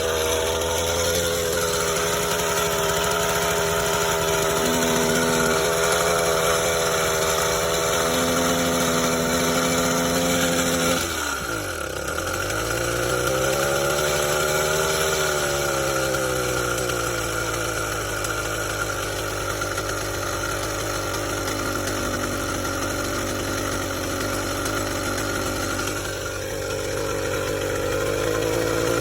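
Small two-stroke engine of a motorized bicycle running at a steady idle, newly fixed with a replaced exhaust gasket and tightened head bolts after a leak that kept it from running well. About eleven seconds in its pitch drops sharply, then climbs in a short rev and settles back, and it rises a little again near the end.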